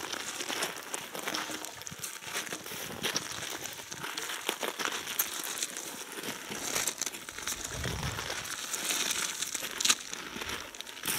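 Crunching and crackling of pebble gravel under boots, irregular and continuous, as a person shifts and crouches on a gravel riverbank, with a dull thump about eight seconds in.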